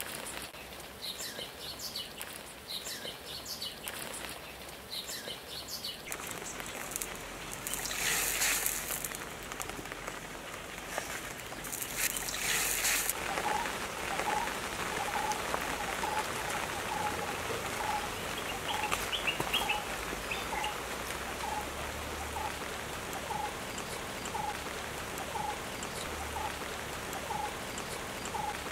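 Forest ambience with a steady hiss of water and birds: quick high chirps in the first few seconds, then a bird repeating one short note about once a second through the second half. Two bursts of water noise, each about a second long, come around 8 and 12 seconds in.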